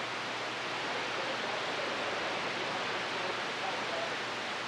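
Steady hiss of receiver static from an RCI-2995DX AM/FM/SSB radio, left open on the channel between transmissions.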